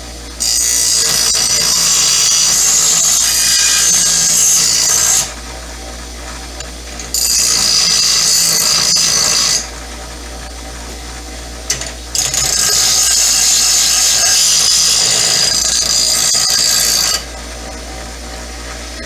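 Electric grinder grinding down the crowned head of a steel screw. The screw is pressed against the spinning wheel three times, each time giving a loud, high grinding hiss lasting several seconds, and the motor runs on more quietly in between.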